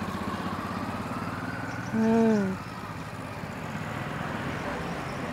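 An engine running steadily, a low pulsing hum, with a short hummed voice sound about two seconds in that is the loudest moment.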